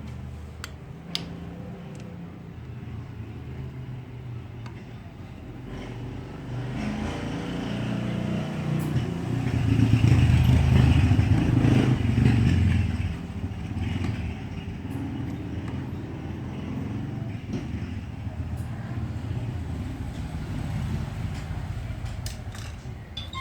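Suzuki Shogun Pro 125 motorcycle running through an HGM aftermarket exhaust pipe. The exhaust note swells to its loudest in the middle, then drops back to a steadier, quieter run.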